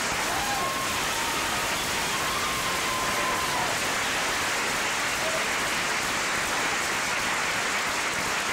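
Large audience applauding, a steady dense clapping, with a few faint voices calling out in the first few seconds.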